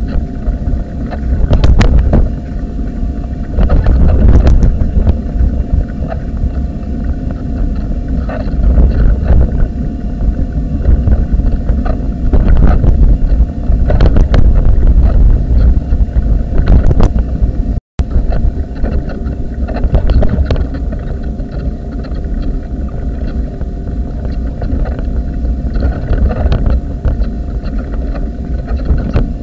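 Low rumble and rattling knocks from a camera fixed to a moving wheelchair, picking up vibration as it rolls over the paved path, with wind buffeting the microphone. The sound cuts out for an instant past the halfway point.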